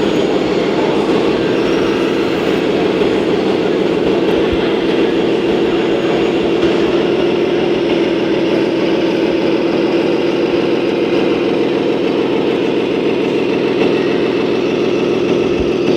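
Radio-controlled construction model's motor running with a steady hum of even pitch.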